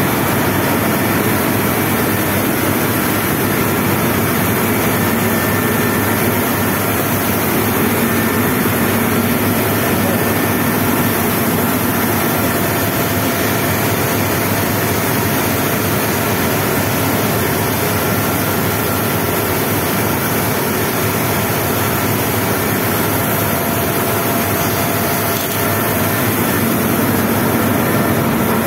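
Steady industrial machinery noise from a steel plant: a constant mechanical drone with faint steady hum tones running through it.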